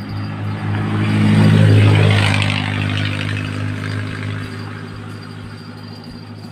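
A motor vehicle passing by: its engine and a wide hiss rise to their loudest about two seconds in, then fade away gradually.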